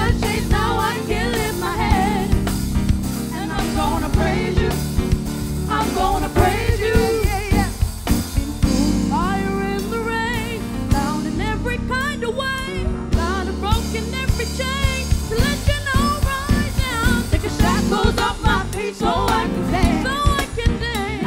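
A boy and a girl singing a song together into microphones, over backing music with a steady beat.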